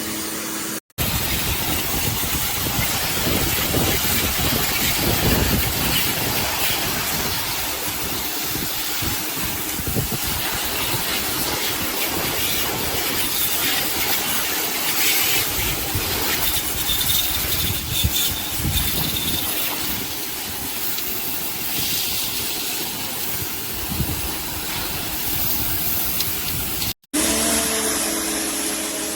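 Electric pressure washer spraying water onto a concrete sidewalk: a steady hissing spray that cuts out for a moment twice. Near the end, the pump motor's steady hum comes through under the spray.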